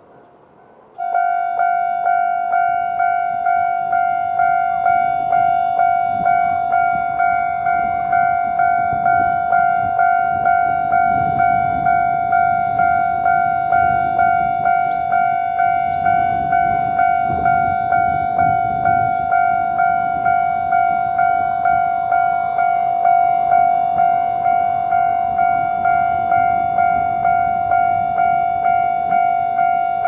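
Japanese level-crossing electronic warning bell starting about a second in and ringing steadily, one ringing tone struck about three times every two seconds, the normal crossing alarm warning that a train is approaching.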